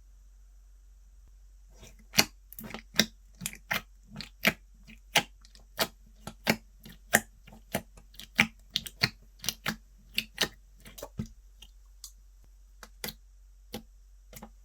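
Slime being pressed and worked by hand, giving a run of sharp pops and clicks, roughly two a second, starting about two seconds in and thinning out near the end.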